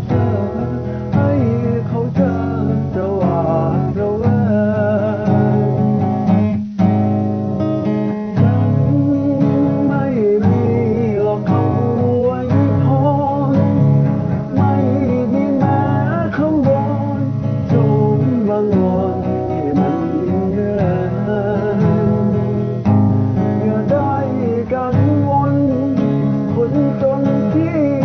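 A song with strummed acoustic guitar and a singing voice carrying the melody; the music breaks off for a moment about a third of the way in.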